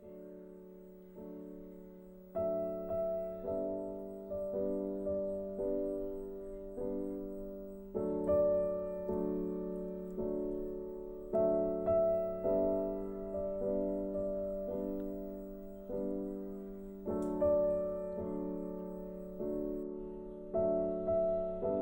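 Background music: a slow, gentle piano melody, notes struck about once a second and left to ring and fade.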